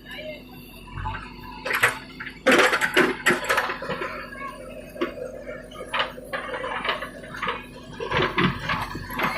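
Irregular metallic clanks and clatter, loudest and densest about two and a half to three and a half seconds in, over a faint steady hum.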